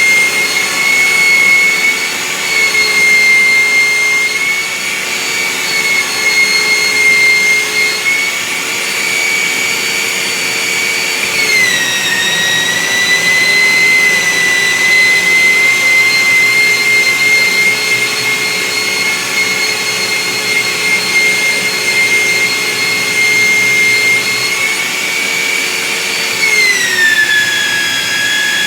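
Handheld electric belt sander, clamped upside down, running with a loud, steady high whine over the grinding of wood being sanded. The whine drops in pitch twice: about twelve seconds in and near the end.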